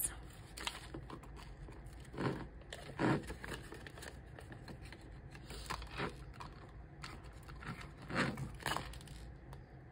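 Paper bills and clear plastic binder pockets rustling and crinkling as the bills are handled and slid into the pockets, in a handful of short, separate rustles.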